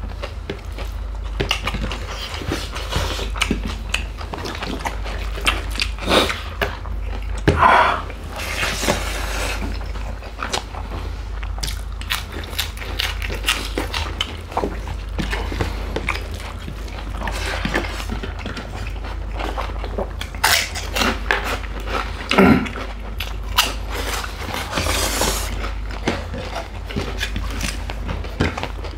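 Close-miked eating: chewing, lip smacking and food squished between the fingers as rice is mixed and eaten by hand, in many irregular small clicks and smacks.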